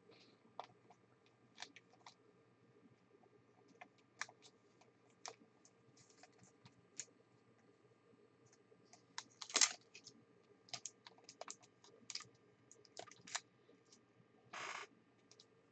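Faint, scattered light clicks and taps at an uneven pace, with one louder click about ten seconds in and a short scrape near the end.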